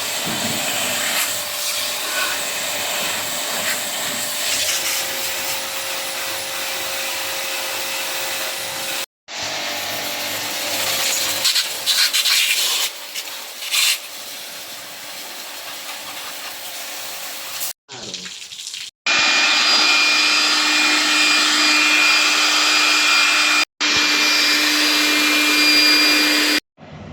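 A motor-driven pressure-jet pump spraying water with a steady hiss, washing the dirt-choked coils of a window AC during a service. It runs in several takes broken by abrupt cuts, and the last take is the loudest, with a steady whine in it.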